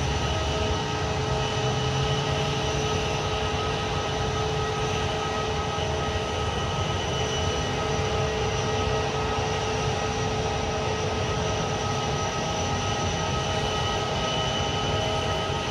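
A jet airliner's engines running steadily: a constant whine made of several held tones over a steady rush.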